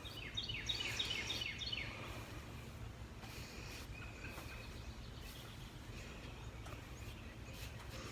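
Outdoor ambience: a bird sings a quick run of falling chirps in the first couple of seconds, over a steady low rumble.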